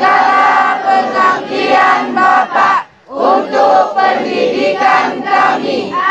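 A large group of teenage boys and girls calling out together in unison, many voices at once, with a short pause for breath about three seconds in.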